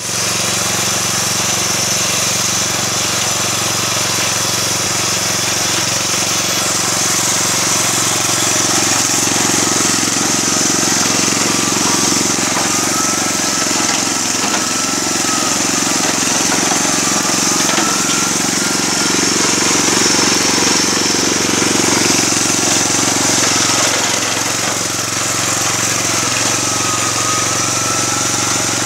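Small petrol engine of a homemade push mower running steadily at high speed, its fast-spinning blade mowing through tall grass.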